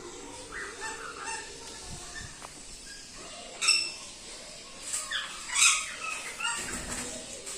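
Pet conures calling in an aviary: a few short squawks with fainter chirps between, the loudest about two-thirds of the way through.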